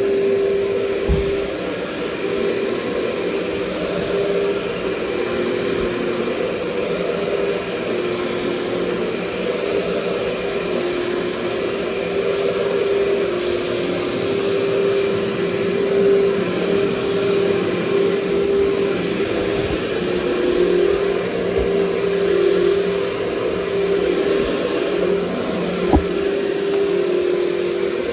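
Workhorse cyclonic canister vacuum cleaner running steadily on soil-laden carpet: a motor whine whose pitch shifts a little over an airy hiss. A couple of short knocks, about a second in and near the end.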